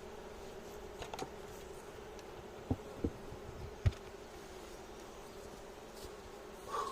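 Honeybee colony buzzing with a steady hum, broken by a few sharp knocks between about two and a half and four seconds in.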